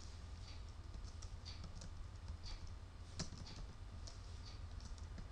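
Faint, irregular keystrokes on a computer keyboard, with one sharper click a little after three seconds in, over a low steady hum.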